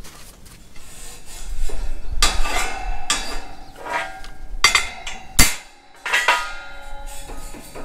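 Hammer blows on the steel slats of the Minneapolis-Moline X231 prototype tractor's grille panel, knocking bent slats back into shape: about six uneven, ringing metal clanks, the sharpest a little over two-thirds through.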